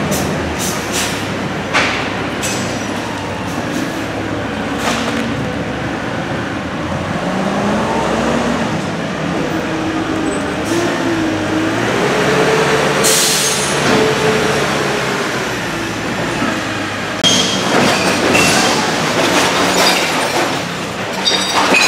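CNG-powered Amrep automated side-loader recycling truck running with its hydraulics working as the tipped body comes down and the truck pulls away, its pitch wavering up and down through the middle. Sharp clanks and rattles of metal and debris come thick near the end.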